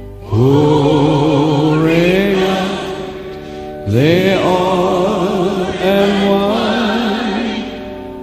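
Gospel worship song: a solo voice sings three long phrases, each starting with an upward slide and held with vibrato, over a sustained chord.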